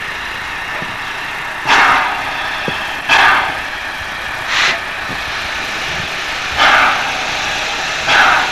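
Steam locomotive chuffing slowly as it moves at walking pace, one short exhaust beat about every second and a half, over a steady background hiss.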